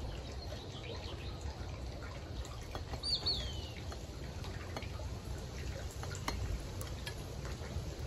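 Wind rumbling on the microphone, with a short high bird call about three seconds in: two quick notes and a falling note.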